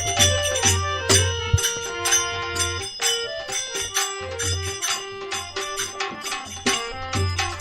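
Instrumental interlude of a Rajasthani bhajan: a melody of held notes over a steady percussion beat with repeated low thumps.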